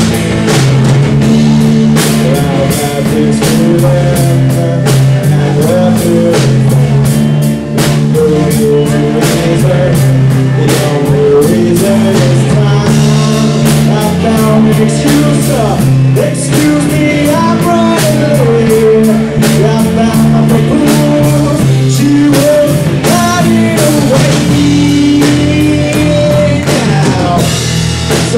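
Live rock band playing loudly: drum kit and electric guitar driving a song, with singing.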